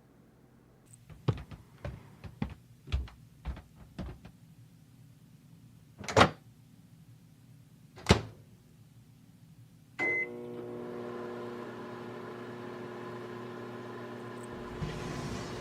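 A microwave oven being used: a string of light footsteps, two louder thumps, then a short beep about ten seconds in as the oven starts and runs with a steady hum, heating a bear-shaped heat pack.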